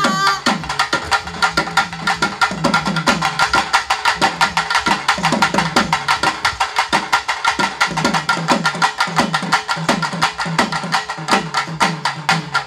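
Naiyandi melam drums playing a fast, driving rhythm: rapid sharp strokes many times a second over repeated deep barrel-drum strokes that drop in pitch.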